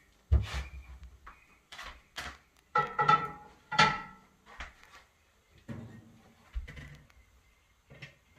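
Kitchen handling noise: irregular knocks and clatters, about ten in all. A couple near the middle carry a brief ringing tone.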